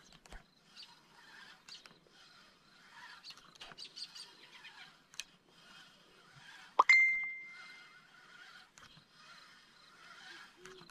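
Small birds chirping and twittering in the background, with one sharp metallic clink about seven seconds in that rings on briefly as a single tone.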